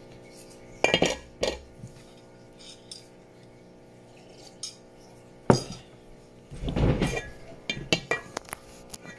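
A kitchen knife and cut bottle gourd pieces knocking against a stainless steel bowl. Several sharp clinks and knocks come about one second in and again near five and a half seconds, then a longer clatter around seven seconds, followed by a few quick clicks.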